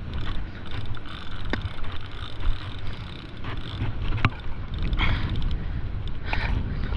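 Wind buffeting the microphone in a steady low rumble, with a few short knocks and clicks from handling of the fishing gear.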